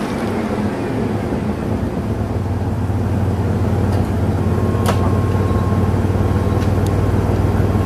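Motor vehicle engine running steadily with a low hum, as it pulls on a rope; a faint steady whine joins about halfway, with a click or two.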